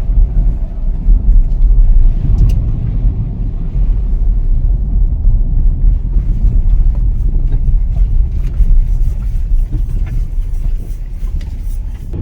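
Car driving over a rough, bumpy road, a loud, uneven low rumble of tyres and suspension. Scattered sharp ticks join in during the last few seconds.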